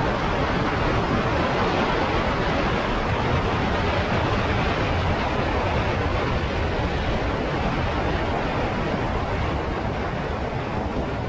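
Steady wind rush on the microphone of a Honda Africa Twin motorcycle riding along a gravel road, with engine and tyre noise blended in, easing slightly near the end.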